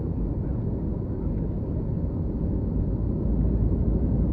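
Airbus A321 cabin noise on approach: a steady low rumble of engines and airflow, growing louder in the bass about three seconds in.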